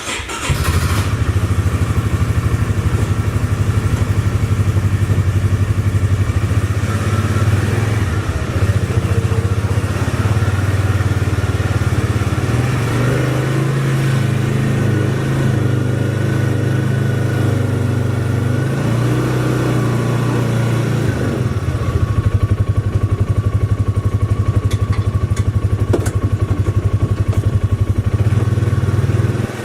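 A small engine running steadily close by, with a low, even drone; its pitch shifts up for a while about twelve seconds in, then settles back.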